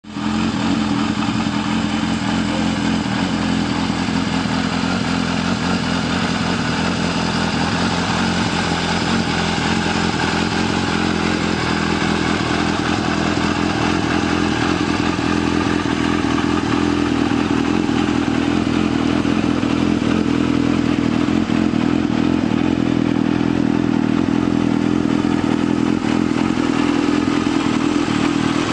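Yamaha XJR1300's air-cooled inline-four engine idling steadily through an Akrapovic exhaust after a cold start, with no revving.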